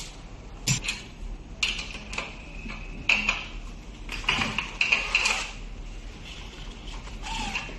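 A snip of scissors about a second in, then a run of metallic clinks and scrapes as an open-end wrench is worked on the rear axle nut of an electric bike's hub-motor wheel. The clinks bunch up in the middle, as the nut is turned in quick short strokes.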